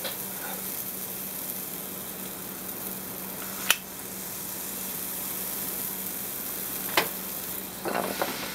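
Batter sizzling with a steady hiss on the hot, oiled waffle plates of a George Foreman grill. A sharp click from the ice-cream scoop's release comes a little before halfway, with a knock about seven seconds in and a brief clatter near the end.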